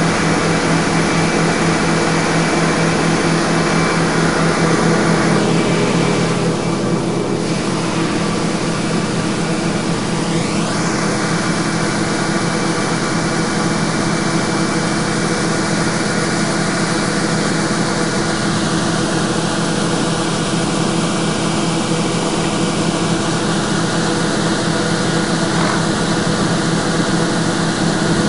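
John Deere 9680 WTS combine running with its unloading auger engaged while grain pours from the spout into a trailer: a steady engine drone under an even rushing noise.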